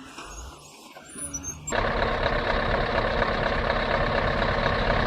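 Heavy truck engine running, quiet at first; about a second and a half in, the sound jumps suddenly to a loud, steady engine noise.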